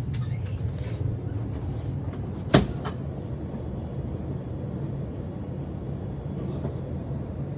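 Steady low rumble, with a few light clicks in the first second and one sharp click about two and a half seconds in.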